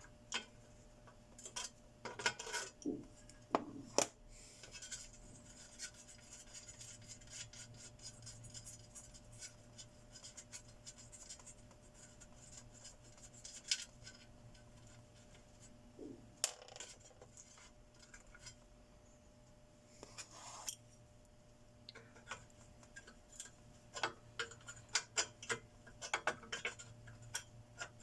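Handling of metal parts and tools while taking apart an inverter welding machine: irregular small clicks, taps and scraping, with busier clusters near the start and again in the last few seconds.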